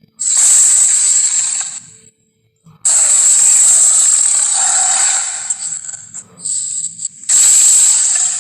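Monster roar and snarl sound effects made from tiger and beast recordings: three harsh, hissy bursts, two long ones and a shorter one near the end.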